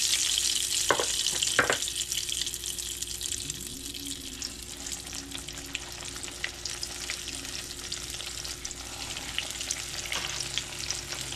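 Hot vegetable oil sizzling and crackling in a cast-iron skillet as biscuit-dough pies fry. The sizzle is loudest at first, eases off, then builds again near the end as raw pies go into the oil. There are two sharp clicks about a second in.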